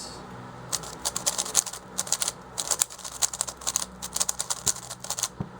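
YJ Yuhu V2M magnetic megaminx being turned for the first time: quick runs of plastic clicks and clacks as its faces are twisted, beginning just under a second in and stopping shortly before the end.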